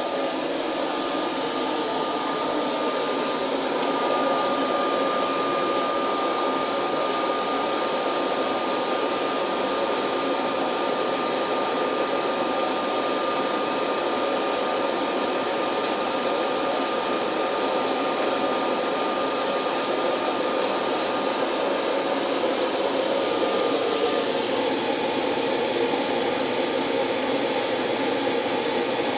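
DIY fluid-bed coffee roaster running mid-roast, just past first crack: a steady rush of hot air blowing up through the glass chamber of tumbling beans. A thin high whine runs along with it and stops about five seconds before the end.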